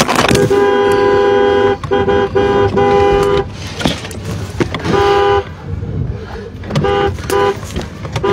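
Two-note car horn honking: one long blast, then a run of short, repeated honks with gaps between them.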